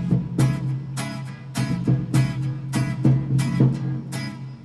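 Instrumental music: a guitar strummed in a steady rhythm, about three strums a second, over a held low note.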